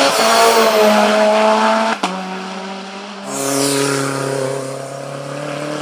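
Turbocharged Mitsubishi Lancer Evolution VIII hillclimb car accelerating hard, its engine note rising. About two seconds in, the sound cuts to a turbocharged Fiat Punto GT race car, its engine holding a steady high note and swelling louder.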